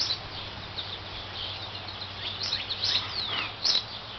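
Female northern cardinal singing: several short high notes and a long downward-slurred whistle about three seconds in.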